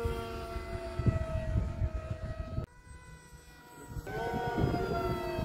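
Motor of a Lightning 1 delta-wing RC model plane whining in flight, its pitch sliding slowly down, over wind rumble on the microphone. The whine drops away abruptly a little past halfway, then swells back about a second later.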